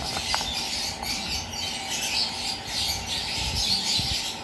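A flock of caged small birds chirping and chattering together, a steady high-pitched twittering.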